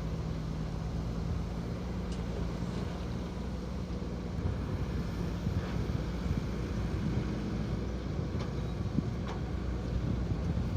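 Diesel engine of heavy earthmoving machinery running steadily, a low hum, with a few faint knocks scattered through it.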